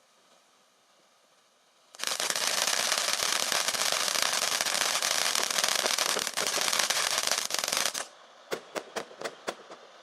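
Fireworks crackling: a dense, rapid string of small cracks starts suddenly about two seconds in, runs for about six seconds, cuts off, and is followed by about six separate sharp pops.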